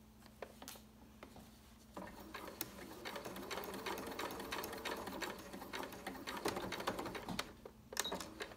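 Janome sewing machine running a basting stitch along a zipper: it starts about two seconds in, runs steadily for about six seconds with rapid needle strokes, then stops, followed by a few light clicks.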